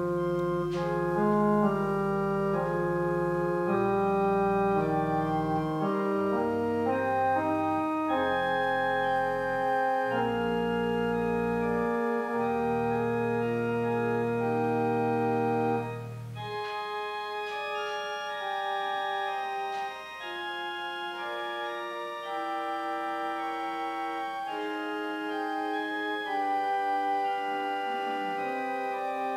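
Church organ playing slow, held chords over a sustained bass line. A little past halfway the bass drops out and the music carries on more softly in the upper voices.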